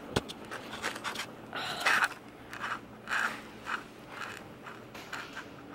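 Fingernails scratching itchy skin: a series of short, soft rasps about twice a second, after a single click near the start.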